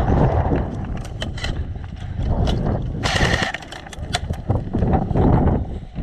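Airsoft guns firing: scattered sharp cracks, a quick cluster about a second in and another about four seconds in, over low wind rumble on the microphone.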